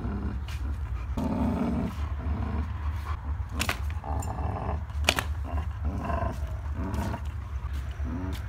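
German shepherd and pit bull growling while tugging on a toy, in rough irregular bursts. Two sharp clicks a second and a half apart come midway, the second the loudest sound.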